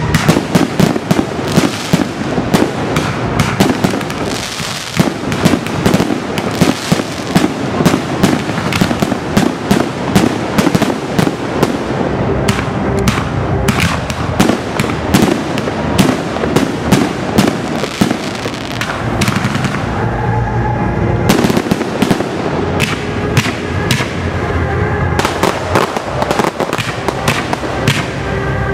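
Aerial fireworks display: a dense, continuous barrage of shell bursts, bangs and crackle in rapid volleys, thinning briefly about twenty seconds in.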